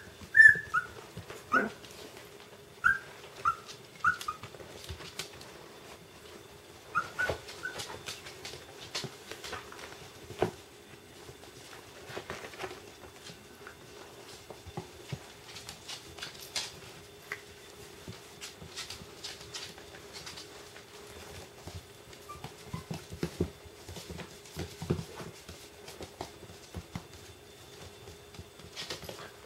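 Young puppies giving short, high-pitched yips and whimpers, several in the first few seconds and a few more about seven seconds in, amid scuffling and small clicks of paws and claws on a wooden floor.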